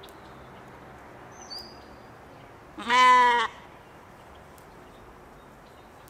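A Katahdin sheep bleats once, a single call about half a second long, about three seconds in.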